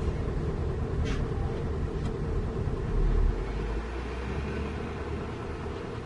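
Diesel dump truck engines running, a steady low rumble with a short hiss about a second in. The rumble swells louder about three seconds in, then eases a little.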